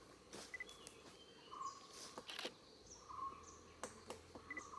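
Several forest birds calling faintly: one repeats a short low note about every one and a half seconds, while others give thin, high, falling notes and quick paired chirps. A few short crackles are heard alongside.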